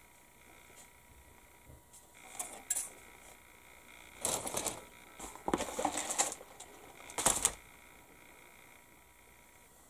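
Plastic model-kit sprues being handled and put down, with a plastic bag rustling: a string of short clatters and crinkles from about two seconds in to about seven and a half seconds in.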